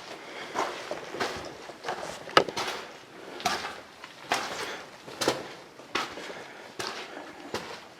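Footsteps and scuffs on a cave floor: a sharp step or scrape roughly once a second, with rustling and shuffling between.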